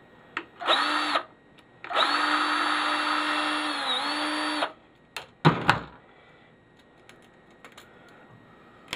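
A handheld electric power tool with a drill-type motor, run in a short burst and then for nearly three seconds, its steady whine dipping briefly under load near the end of the longer run. A few sharp knocks follow.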